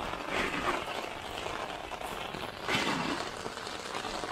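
Steady hiss of heavy monsoon rain, swelling briefly twice.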